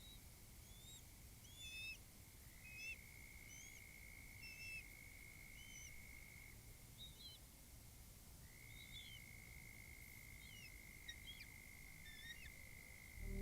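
Faint outdoor nest-cam ambience: birds calling with short, high chirps scattered throughout, over a steady high-pitched tone that holds for several seconds, drops out about halfway through, and comes back.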